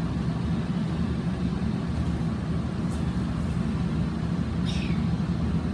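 Steady low rumble of outdoor background noise, with a brief high falling chirp about three-quarters of the way through.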